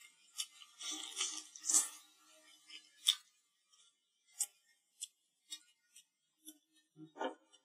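Close-miked eating sounds of a person biting, chewing and sucking meat off a braised pork rib: short wet smacks and clicks, thickest in the first two seconds and sparser after, with a short low hum near the end.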